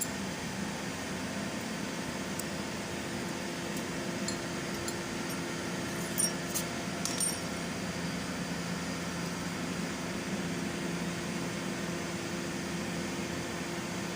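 Steady mechanical hum from a running machine, with a few light metallic clicks about six and seven seconds in.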